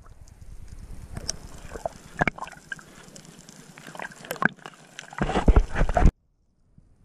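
Water sloshing and gurgling against a submerged action camera's housing, with scattered clicks and crackles. About five seconds in comes a louder low rush of water, which cuts off suddenly.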